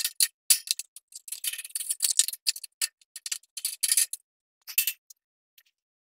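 Small metallic clicks and rattles of a wire bird cage's bars as a plastic feeder cup is clipped onto them: a quick, irregular run of clicks that stops about five seconds in.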